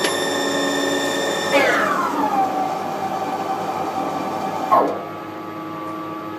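Haas TL1 CNC lathe's spindle drive whining, stepping down in pitch twice: a falling whine about a second and a half in that settles lower, then another drop near the end as it gets quieter.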